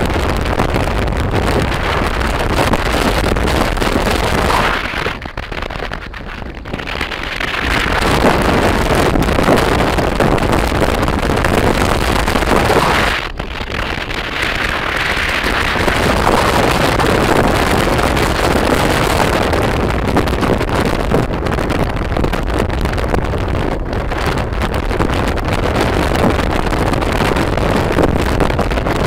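Wind rushing over the microphone of a phone carried on a moving motorbike, mixed with engine and road noise. It eases briefly twice, about five and thirteen seconds in.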